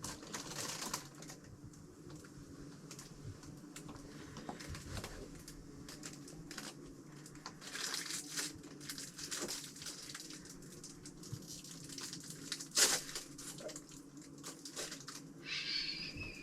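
Scattered rustling and crinkling close by, with a sharp click about thirteen seconds in. A short bird call near the end.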